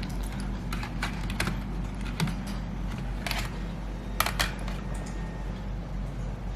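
Scattered light clicks and taps from handling the opened laptop's internal parts, over a steady low hum.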